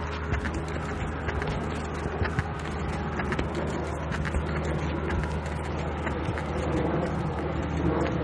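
Footsteps on a dirt path, picked up by a chest-worn police body camera along with clothing rustle, over a steady low hum of distant traffic.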